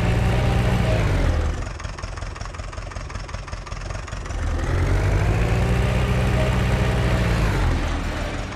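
Tractor engine running with a deep note, revving up and easing back twice: once at the start and again for about three seconds past the middle.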